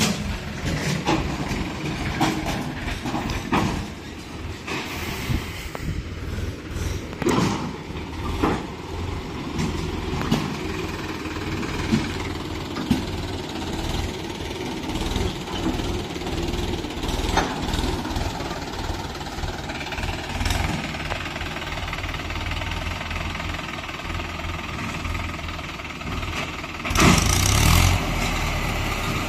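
Diesel engines of a Mahindra tractor and a JCB 3DX backhoe loader running steadily while the tractor reverses its trailer, with scattered knocks. A loud burst of noise lasting about a second comes near the end.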